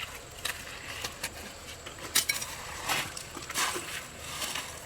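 A series of irregular clattering knocks, about one or two a second, the loudest near the middle.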